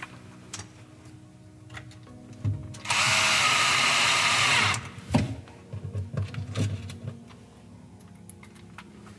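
Cordless drill-driver running steadily for just under two seconds, about three seconds in, as it drives a screw through the aluminium profile of an LED drawer light into the cabinet side. Scattered clicks and knocks of handling come before and after it.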